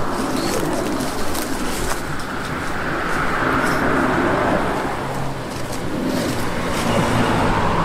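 Road traffic on the adjacent street: a steady hum of cars, swelling as vehicles pass about three seconds in and again near the end.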